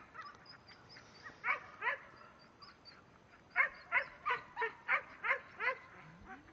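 A dog barking: two barks about one and a half seconds in, then a quick run of about seven barks, roughly three a second, a couple of seconds later.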